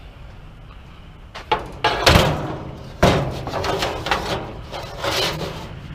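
Metal bed-frame rails being loaded into a pickup truck bed full of scrap: a few loud metal clanks, the loudest about two seconds in, then rattling and scraping as they are slid into place.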